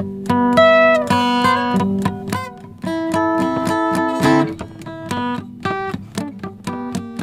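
Acoustic guitar played unaccompanied, a quick run of picked notes and strummed chords.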